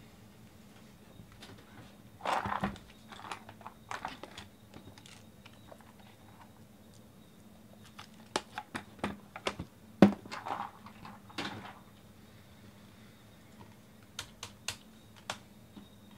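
Computer keyboard being typed on in short, scattered runs of clicks, with a sharper knock about ten seconds in, over a faint steady hum.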